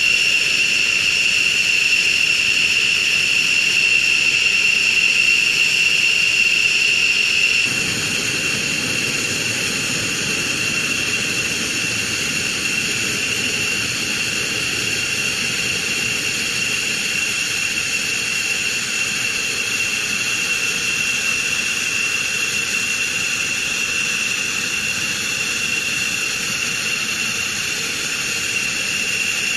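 F-15E Strike Eagle jet engines running at low power on the flight line as the jet taxis, a steady high whine with a rushing noise beneath. About eight seconds in, the whine gets a little quieter and a low rumble comes up.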